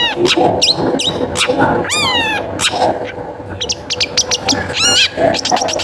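Long-tailed shrike (cendet) singing: a fast, scratchy chatter of clicking notes broken by arching, slurred whistled calls, three of them.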